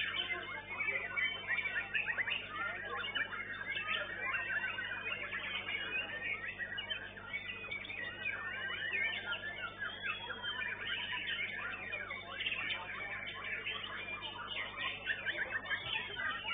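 White-rumped shamas (murai batu) singing in contest cages, a dense, unbroken stream of overlapping whistles, chirps and trills. It is heard through a CCTV microphone that cuts off the top of the song, giving it a thin sound.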